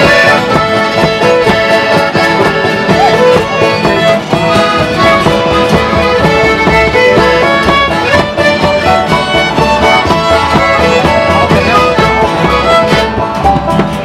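Acoustic folk session band playing an instrumental break with no singing. Fiddle and accordion carry the tune over strummed acoustic guitars and banjo.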